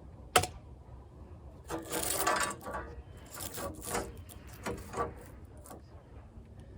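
A foundation panel being handled and fitted into place: one sharp knock, then a second-long scrape and several shorter scraping and rubbing noises.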